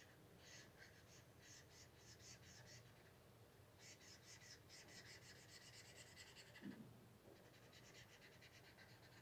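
Felt-tip marker scratching back and forth on paper while colouring in a shape: faint, quick, short strokes in runs of several a second, with a brief pause about three seconds in. One soft thump about two-thirds of the way through.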